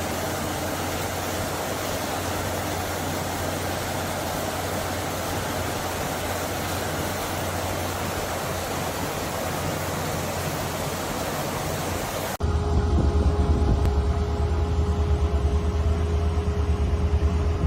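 Steady rushing roar of water erupting from the ground at a well being drilled, with a low hum underneath. About twelve seconds in it cuts off abruptly to a louder, low rumbling sound.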